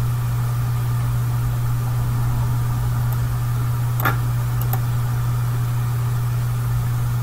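A steady low hum, with one short click about four seconds in.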